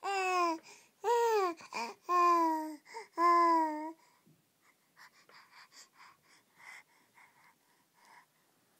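Baby babbling in four loud, drawn-out vocal calls over the first four seconds, each rising and then falling in pitch.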